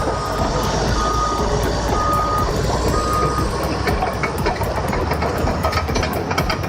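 Heavy construction machine's backup or travel alarm beeping about once a second over the steady rumble of its engine; the beeps stop about three and a half seconds in.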